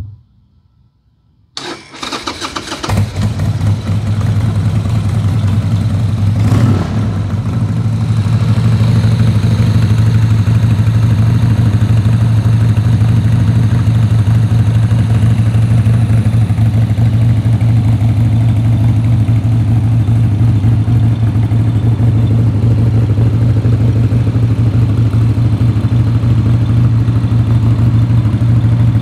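1999 Harley-Davidson Sportster XL1200's air-cooled Evolution V-twin cranked on the electric starter, catching after about a second of cranking. It revs up briefly, then settles into a steady, loud idle.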